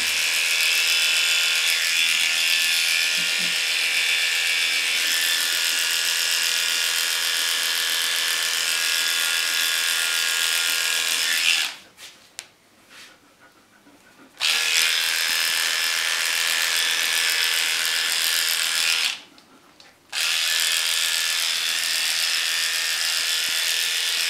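Cordless electric dog clippers with a number 10 blade buzzing steadily while clipping a poodle's face. The buzz stops about twelve seconds in for nearly three seconds, then stops again for about a second near the end of the second stretch before running on.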